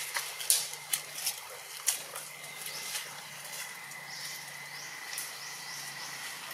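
Outdoor ambience in trees: a few sharp clicks and crackles in the first two seconds, then a steady thin high-pitched tone over a soft high hiss, with a few faint chirps.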